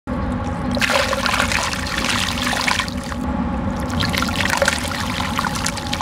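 Dry dirt poured in a stream into water in a plastic bucket: a gritty hissing splash with fine crackles, in two spells, about a second in and again near four seconds.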